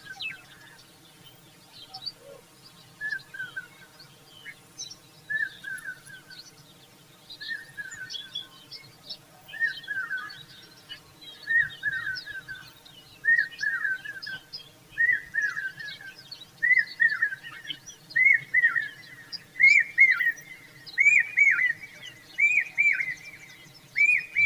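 Birds calling: a short phrase of quick falling notes repeated every one to two seconds, growing louder and closer together, over faint high chirping.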